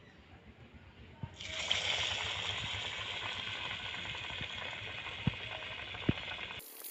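Hot refined oil in a kadai sizzling and crackling as elephant-foot-yam (ol) fritter batter is dropped in by hand. The sizzle starts suddenly about a second and a half in and holds steady, with a couple of sharp pops near the end.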